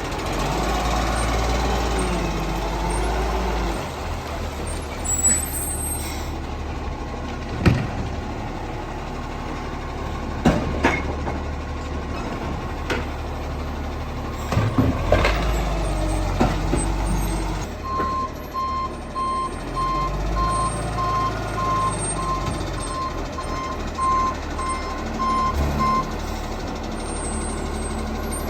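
Garbage truck engine running with a few sharp knocks, then its reversing alarm beeping steadily for about eight seconds in the second half.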